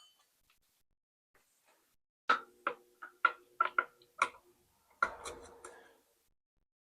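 A series of about eight sharp metallic knocks, each with a brief ring, then a short rattling clatter of metal parts.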